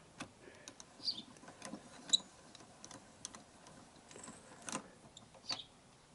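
Socket on a speed brace turning the nut on a motorcycle side-stand pivot bolt: faint, irregular light metal clicks and clinks, with a sharper tick about two seconds in.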